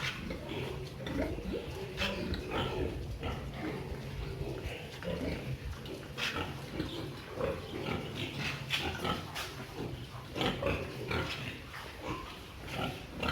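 Pigs grunting, with many short, irregular calls overlapping.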